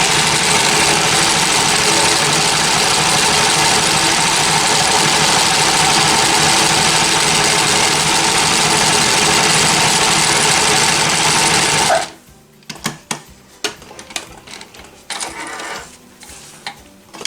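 Janome L393 sewing machine stitching steadily at speed on a selected pattern stitch, stopping abruptly about twelve seconds in. After it stops, a few scattered light clicks and knocks.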